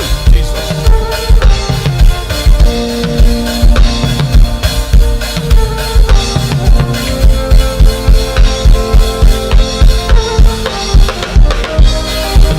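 Worship music with a steady drum-kit beat, kick and snare, over held keyboard chords.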